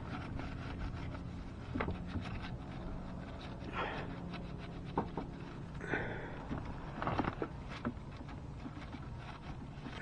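Paper towel wiping and rubbing over the metal gasket surface of a GY6 scooter engine's crankcase: a few short swishes with light clicks and knocks from handling. A low steady hum runs underneath.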